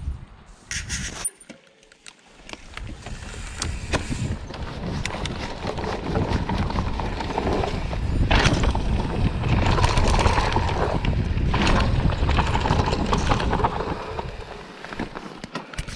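Mountain bike riding fast down a dirt forest trail: tyre rumble over roots and soil with frame and chain rattle and wind buffeting the microphone, building from about two seconds in and easing near the end.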